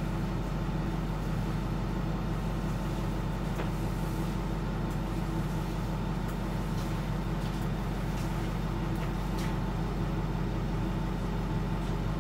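School bus engine running at a steady idle, heard from inside the passenger cabin as a constant low hum.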